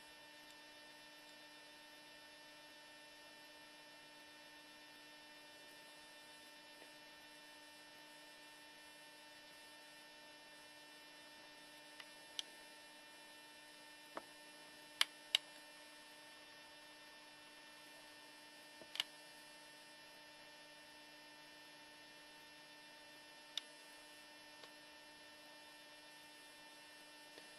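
Faint, steady electrical hum with many even overtones, broken by a handful of sharp clicks, two of them close together about halfway through.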